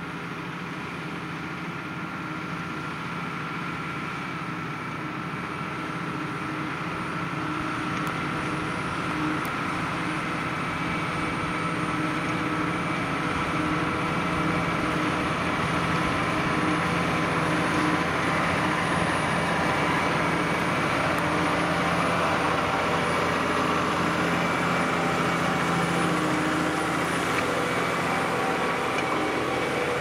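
New Holland T7.245 tractor's six-cylinder diesel engine running steadily under load as it pulls a reversible plough through the ground. It grows gradually louder as the tractor comes close and passes.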